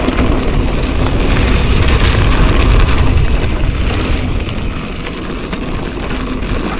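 Wind rushing over a GoPro's microphone together with a mountain bike's tyres rolling over a loose dirt trail at speed: a loud, steady rumble of noise, strongest two to three seconds in and easing a little after four.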